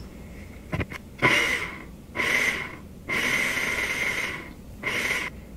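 Personal blender run in four short pulses, the third the longest, blending watermelon chunks, mint and lime into juice. A click about a second in as the cup is set on the base.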